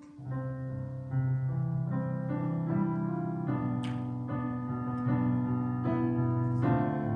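Piano or electric keyboard playing slow sustained chords with a held bass line, starting softly and filling out a moment in.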